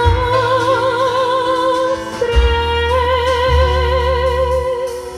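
A female singer on a microphone holds long sung notes with a wide vibrato over a backing track with deep bass: the song's closing notes. One held note breaks off about two seconds in, and a second long note follows and fades out with the music near the end.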